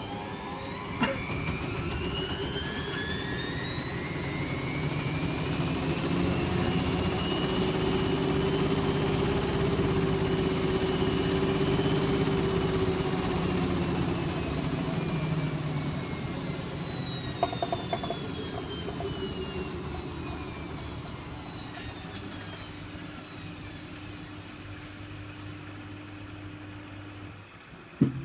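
Servis Quartz 6033 washing machine's drum motor in a short spin: a whine rises in pitch and loudness for about the first ten seconds, holds, then falls away as the drum slows. A steady low hum underneath cuts out near the end.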